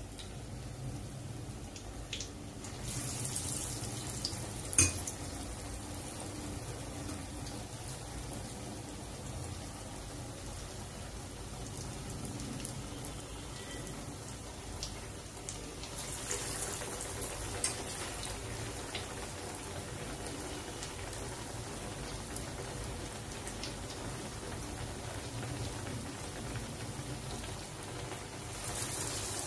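Paruppu vadai (chana and toor dal fritters) sizzling as they deep-fry in hot oil in a kadai. The sizzle grows louder about three seconds in, again about sixteen seconds in and near the end, as fresh batter goes into the oil. There is one sharp click about five seconds in.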